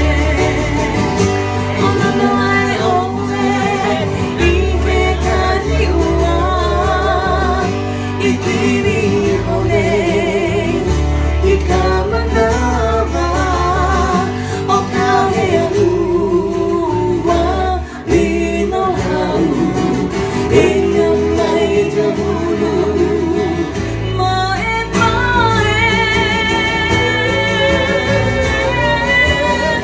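Live band playing a song: a man singing lead with vibrato over two strummed acoustic guitars and an electric bass playing a steady bass line. Near the end the voice holds a long high note.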